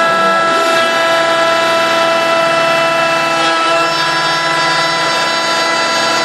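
CNC router running. Its spindle gives a steady high whine, and below it the stepper-motor tones change pitch every second or so as the axes move.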